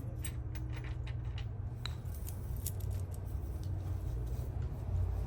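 Light metallic clicks and clinks of hand tools on metal parts, scattered through the first few seconds, over a steady low rumble.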